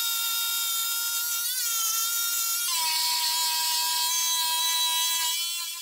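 Electric jigsaw running steadily as it cuts through thick oak, a steady high motor whine over the rasp of the blade. It gets quieter near the end.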